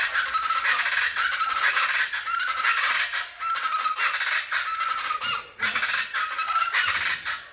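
A group of chachalacas calling together in a loud, raucous chorus of harsh overlapping calls with a rhythmically repeated short note. It cuts off suddenly near the end.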